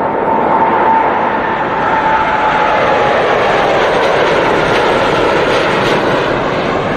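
Boeing 787 Dreamliner's twin turbofan engines at takeoff thrust as the jet rotates and lifts off. They make a loud, steady roar, with a high whine that falls slightly in pitch over the first few seconds.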